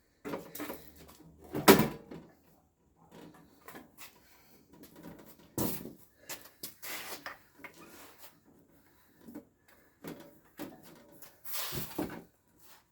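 Scattered knocks, thumps and scrapes of a welding machine and its cardboard and Styrofoam packaging being handled, the loudest knock about two seconds in.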